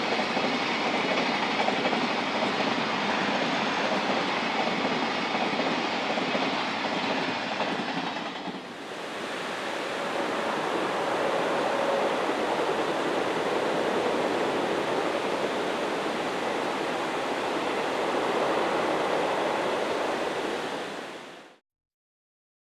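Blue Train sleeper coaches rolling past, a steady noise of wheels on track. About eight and a half seconds in it cuts to another passing train's wheel noise, which fades out about a second before the end.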